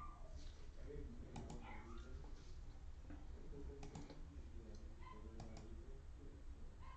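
Light, scattered clicks, some in quick pairs, over a faint low murmur.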